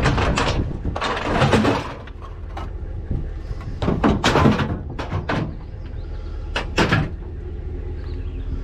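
Several clunks, knocks and scraping sounds in separate bursts, the longest about a second in, over a low steady rumble.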